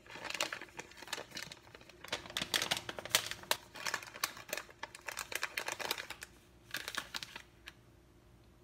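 Chocolate bar wrappers crinkling as they are handled, in irregular bursts that stop about seven and a half seconds in.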